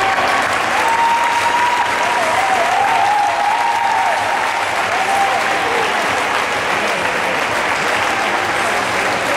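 Audience applauding steadily as teams parade in.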